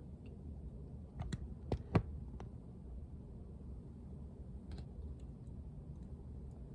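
A few sharp clicks, clustered about a second in, with a fainter one near the middle, over a low steady rumble.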